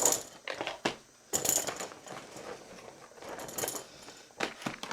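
Small gift items being pulled out and handled: sharp clicks and light clinks as things are set down, with short bursts of rustling packaging.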